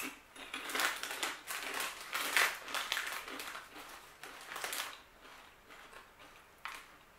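Crunching of hard kettle-cooked onion potato chips being chewed close to the mouth, a run of irregular crunches for about five seconds that then fades to softer chewing.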